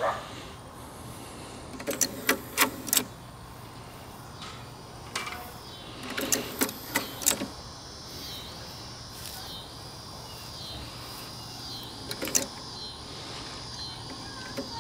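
Nakamichi unidirectional auto-reverse cassette mechanism clicking and clunking: a quick cluster of clicks about two seconds in, another about six seconds in, and a single click near twelve seconds.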